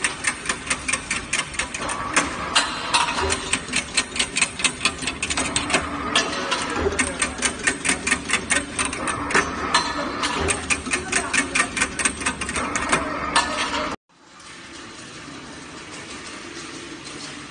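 Wire crimping machine running, its pair of toothed crimping rollers pressing waves into steel wire with a rapid, even clicking of about three or four clicks a second over a mechanical hum. About fourteen seconds in this cuts off suddenly and a quieter steady running noise of a crimped wire mesh weaving machine follows.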